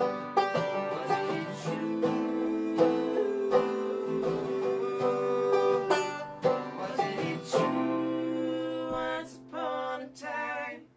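Live acoustic folk duo, a banjo and an acoustic guitar with a woman singing long held notes. Near the end the song closes on two short final chords, then stops suddenly.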